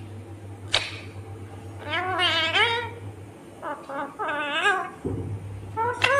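Indian ringneck parrot calling: a sharp click about a second in, then a long wavering call, then a few shorter bending calls about four seconds in.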